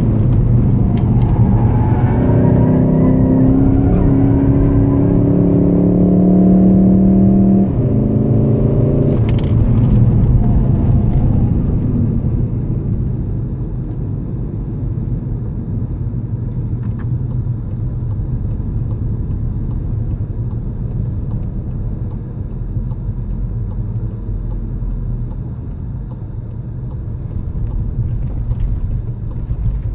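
In-cabin sound of a Volkswagen Golf 7 GTD's 2.0-litre four-cylinder turbodiesel pulling at steady high revs over tyre and road noise. About eight seconds in, the engine note cuts back abruptly, leaving a quieter, steady rumble of engine and tyres.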